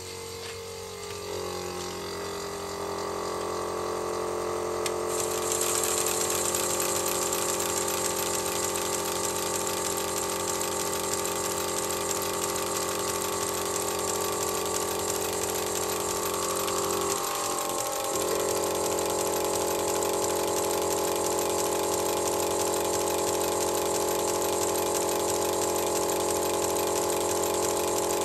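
Drive and running gear of a model Bavarian S 2/6 steam locomotive on a test run after repair, its driving wheels and rods spinning on a stand. A steady whirring hum starts with a click and rises in pitch over the first few seconds as it speeds up. A hiss joins about five seconds in, and the lower hum breaks briefly a little past halfway.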